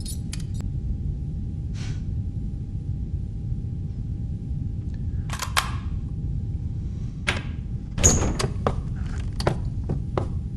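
Scattered knocks and clicks over a low steady rumble, then a heavier door thunk about eight seconds in, followed by a run of evenly spaced footsteps, two or three a second, as people walk into the room.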